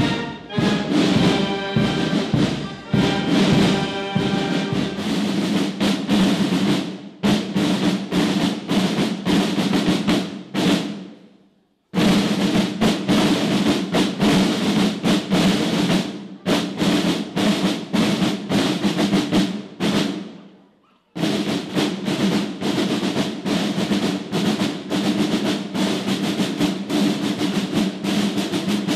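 A drum band of snare drums playing fast rolls and marching rhythms, with a brass tune over the drums at the start. The drumming fades out twice and starts again abruptly.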